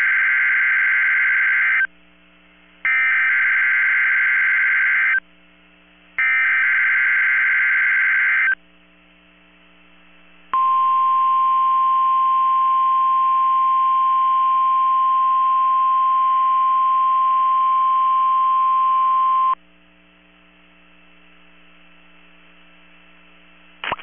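NOAA Weather Radio Required Weekly Test: three bursts of the SAME digital header, each about two seconds long and about a second apart, then after a short gap a single steady 1050 Hz warning alarm tone held for about nine seconds.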